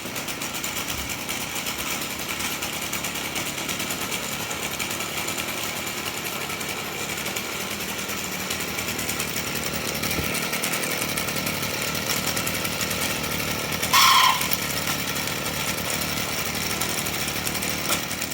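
Stihl FS38 string trimmer's small two-stroke engine idling steadily with a squeal from the clutch drum, with one brief louder burst about three-quarters of the way through.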